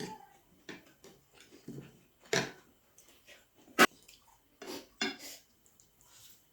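Close-up eating sounds from hotpot: short, irregular wet mouth noises and chewing, with one sharp clink of a utensil against a dish near four seconds in, the loudest sound.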